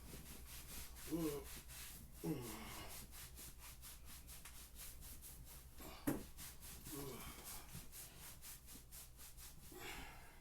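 Rhythmic rubbing, about four strokes a second, with a few brief voice-like sounds and a sharp click about six seconds in.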